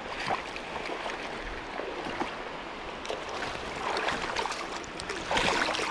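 Shallow stream running steadily over stones, with a few faint clicks and a louder spell of noise near the end.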